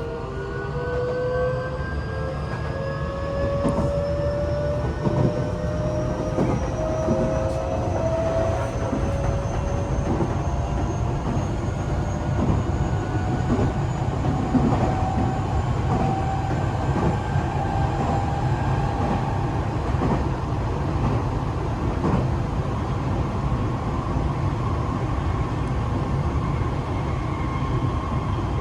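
Tokyo Metro 8000-series train (set 8104F) accelerating: its motor whine climbs slowly and steadily in pitch over about twenty seconds, over a steady rumble of wheels on rail with scattered clicks from the rail joints.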